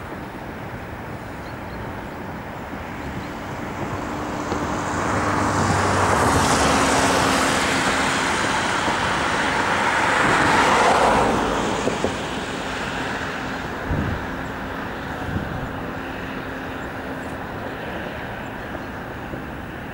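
Engine noise of something passing by: it swells up from a few seconds in, is loudest through the middle, and fades away again about two-thirds of the way through.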